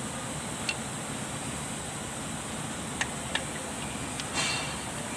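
A few light metallic clicks and taps as steel propeller-shaft parts are handled and knocked together, with a short scrape near the end, over a steady background hiss.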